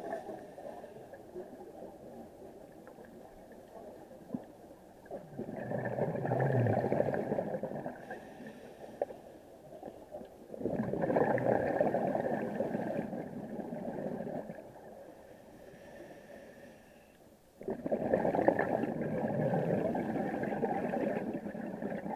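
Scuba diver's breathing through a regulator underwater: three long surges of exhaled bubbles, about six seconds apart, with quieter stretches between breaths.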